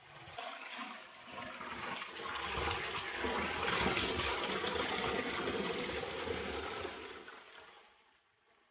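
Water pouring over a small drop in a concrete irrigation channel and splashing into the water below, a steady rush that grows louder over the first few seconds and fades away near the end.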